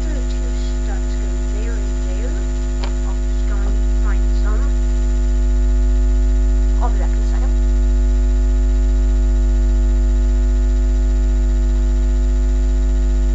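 Loud steady electrical mains hum with a stack of steady overtones, with a few faint short gliding chirps over it.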